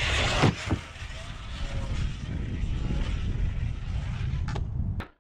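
Traxxas Sledge RC monster truck on 8S power launching at full throttle, its 1250 kV brushless motor giving a brief loud whine that falls quickly about half a second in. Heavy wind rumble on the microphone, a couple of sharp clicks near the end, then the sound cuts off abruptly.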